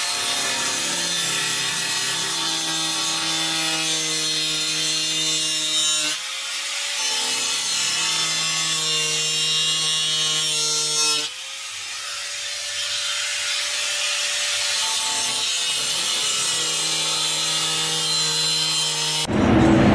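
Electric angle grinder with a cut-off wheel cutting into the steel of a pickup truck's door, a steady whine with the hiss of the disc on metal. Twice the pitch drops and climbs back up as the motor eases off and spins up again, about six and eleven seconds in.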